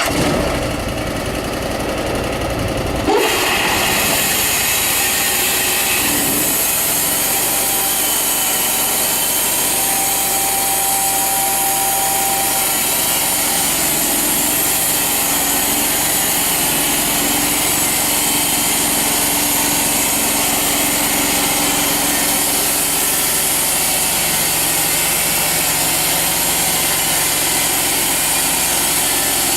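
Band sawmill's engine brought up to full throttle with the blade in gear, then running steadily through a cutting pass. There is a sharp knock about three seconds in, after which the sound settles to a steady, loud drone.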